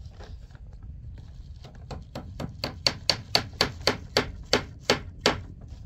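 A hammer striking nails to fasten a plastic tarp over a roof: a quick run of about fourteen blows, about four a second, each with a bright ringing click.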